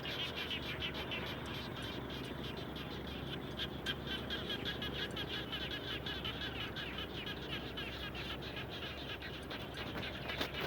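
A chorus of frogs calling after rain: many rapid, overlapping pulsed calls that run on without a break, over a steady low background rumble.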